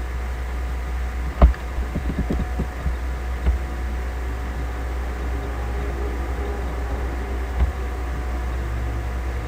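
Steady low electrical hum with a few scattered short clicks, the loudest about one and a half seconds in and a small cluster just after it.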